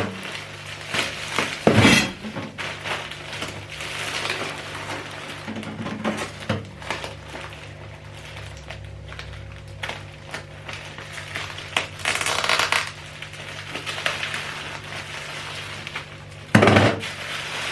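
A parcel being opened and handled: rustling of plastic packaging and small clinks and knocks, with a longer rustle partway through and a louder bump near the end.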